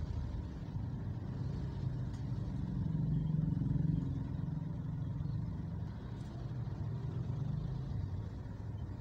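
Slow-moving road traffic: car and motorcycle engines running in a steady low hum that swells a little about three to four seconds in.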